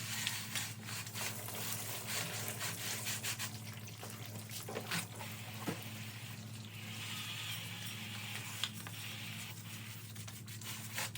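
Engine parts being scrubbed and cleaned with liquid: a run of short rubbing and scraping strokes, then a stretch of hissing liquid sound in the middle, over a steady low hum.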